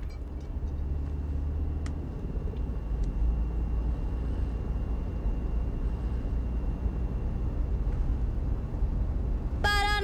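Steady low rumble of a minivan driving at highway speed, heard from inside the cabin, with a faint steady high whine above it. Near the end a brief wavering pitched tone comes in.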